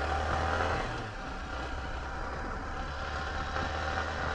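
Engine and road noise from riding in traffic: a steady low engine hum under a broad rush of road noise, dipping briefly about a second in.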